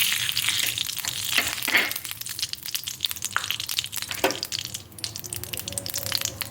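Desi ghee sizzling and crackling as it heats in a kadhai (Indian wok), with a few short louder scrapes about a second and a half in and again around four seconds in.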